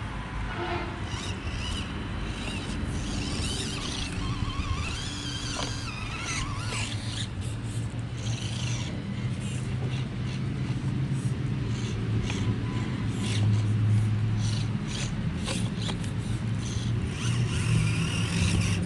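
Micro-scale Axial SCX24 RC crawlers crawling over rock: the small electric motors and gear trains whir, rising and falling with the throttle, and tyres and chassis click against the stone now and then.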